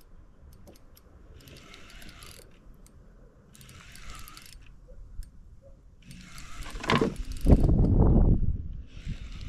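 Fishing reel being cranked in short runs of about a second each, every two to three seconds. Loud low rumbling comes in from about seven seconds in.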